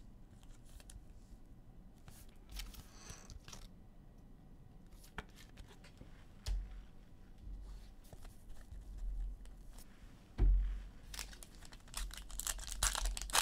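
Trading-card pack wrappers being torn open and crinkled, with light clicks of cards being handled. A dull thump comes about ten seconds in, and the crinkling grows busier near the end.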